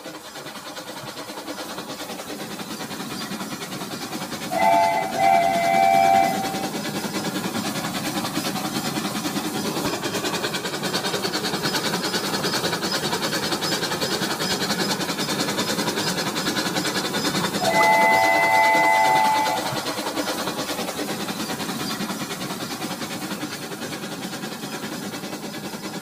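Toy train's small motor and wheels running along plastic track, a steady whirring rattle that grows a little louder in the middle. Twice, about twelve seconds apart, an electronic train whistle sounds for about a second and a half.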